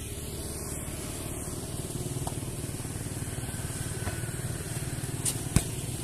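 A single sharp thump of a player's foot striking the foot-volleyball about five and a half seconds in, over a steady low rumble.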